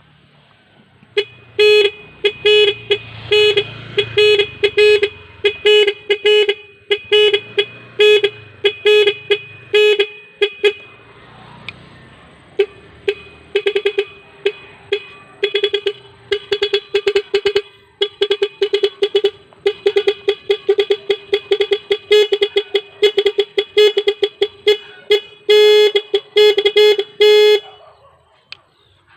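A single Nhay Pro electric horn sounding rapid strings of short honks at one steady pitch, in a fast stuttering pattern with a brief lull partway through.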